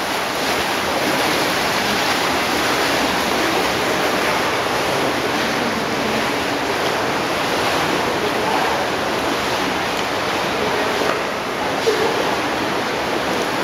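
Hot tub jets churning the water: a steady rushing.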